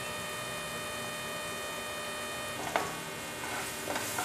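Onion-tomato masala frying gently in a nonstick pan, a low steady sizzle. A light knock about three seconds in, and spatula stirring scrapes the pan near the end.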